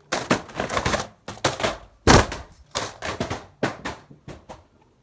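Cardboard chocolate advent calendar being handled and knocked close to the microphone: a quick run of taps and rustles, loudest about two seconds in, thinning out near the end.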